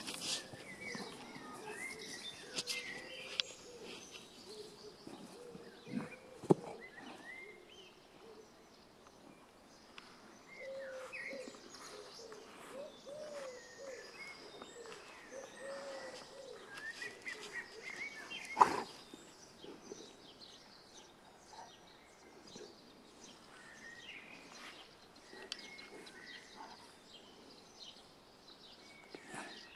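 Songbirds chirping in short calls, with a few sharp knocks; the loudest knock comes about two-thirds of the way through.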